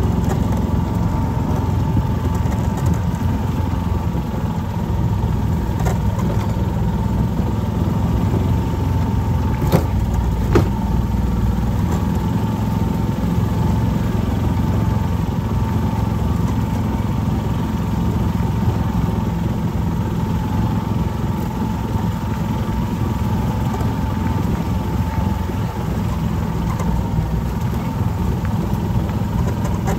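Off-road vehicle's engine running steadily at low speed, heard from the driver's seat as it drives along a rough dirt trail, with a steady whine above the engine drone. Two sharp knocks come about ten seconds in.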